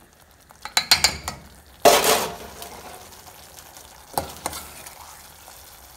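Wooden spoon stirring thick, nearly finished beef curry in a metal pot on the stove, with the curry sizzling. The spoon knocks against the pot around one second in and again about four seconds in, and its loudest stroke comes about two seconds in.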